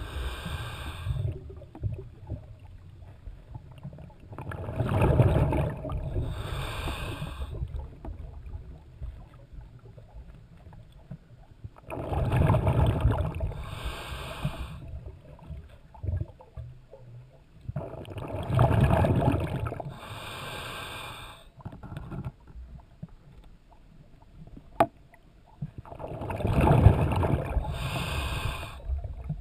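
Scuba diver breathing underwater on an open-circuit regulator: four slow breath cycles, each a loud rush of exhaled bubbles followed by a shorter, high hiss from the regulator.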